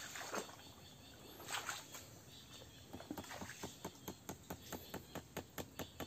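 An animal calling in a rapid, even series of sharp ticks, about five a second, starting about three seconds in. Before it come a couple of short, soft rustling bursts.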